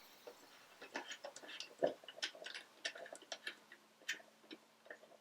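Faint, irregular small clicks and taps, some sharper than others, with a faint steady hum from about two seconds in.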